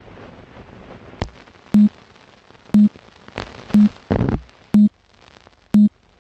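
Film leader countdown beeps: a short low beep once a second, five times, each with a sharp click at its start. Underneath runs a steady hiss and crackle like an old film soundtrack, with one extra click before the first beep and a brief louder crackle burst shortly after the third.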